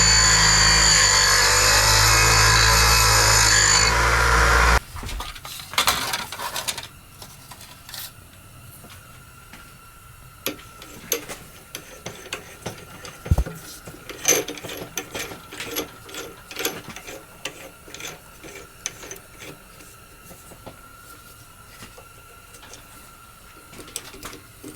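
Background music for about the first five seconds, cutting off abruptly. Then a drill press runs with a faint steady whine while its bit cuts into steel plate, with irregular clicks and scrapes.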